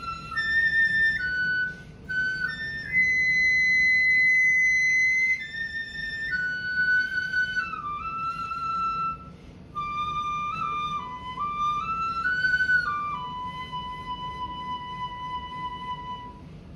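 Shinobue (Japanese bamboo transverse flute) playing a slow solo melody that moves in steps between held notes. A few seconds in, a long high note is held, and near the end the line settles onto a long, lower held note.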